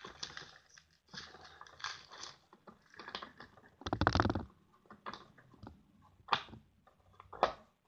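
Cap of a container of paint thinner being twisted open and shut, with scattered clicks and scrapes from handling and one louder burst of rapid clicks about four seconds in. The cap had been squashed in shipping and is being tested to see whether it still opens.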